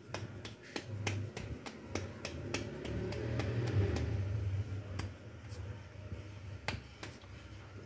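Hands patting and slapping a ball of corn-flour dough between the palms to shape it, a run of short sharp pats about two or three a second that thins out after about five seconds, over a low steady hum.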